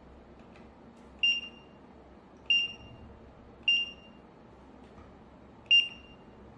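Zebra RFD8500 handheld RFID reader beeping four times, each a short high beep, the last after a longer gap: each beep confirms a tag read that is typed into the mobile device as keyboard input.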